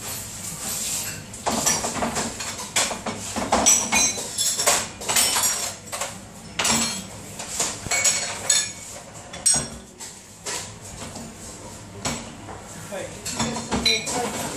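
Crockery plates and cups clattering and clinking as they are handled and stacked into plastic dishwasher racks at a stainless-steel sink, a run of irregular sharp knocks with a bright ring.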